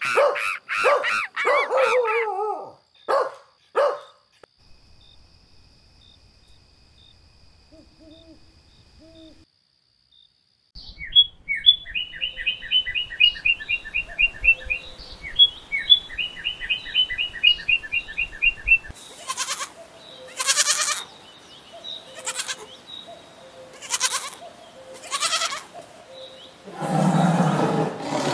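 A string of animal sound effects: a few loud barks in the first four seconds, then, after a quiet stretch, fast runs of high sparrow chirps. A few short noisy bursts follow, and a loud rough sound starts near the end.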